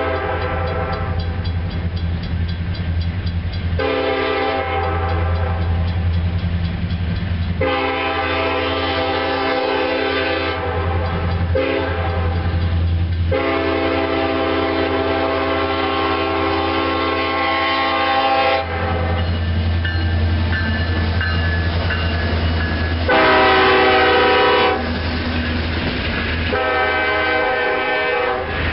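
Norfolk Southern freight train's multi-chime locomotive air horn blowing a series of long blasts with short gaps for the grade crossing, over the steady low rumble of the diesel locomotives. The loudest blast comes about two-thirds of the way through as the locomotives pass, and near the end the freight cars roll by with wheels clacking on the rails.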